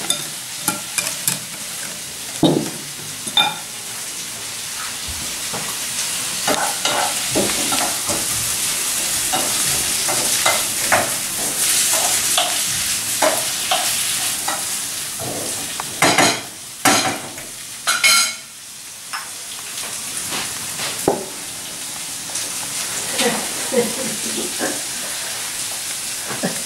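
Courgette pieces sizzling steadily as they fry in a pan, with a utensil scraping and tapping against the pan as they are stirred; a few louder knocks a little past the middle.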